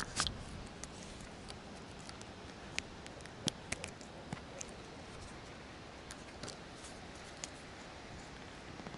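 Irregular small sharp clicks and ticks over a steady outdoor background hiss, with a cluster of louder clicks right at the start.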